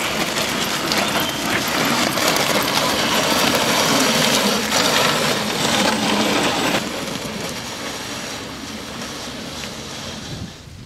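Dog sled runners scraping and rattling over icy snow as the team pulls the sled, a steady gritty rush. It drops to a quieter level about seven seconds in.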